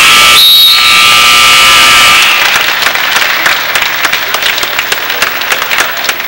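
Gym crowd cheering and yelling at the end of a wrestling bout, with a brief high tone about half a second in, then breaking into scattered clapping and applause that slowly fades.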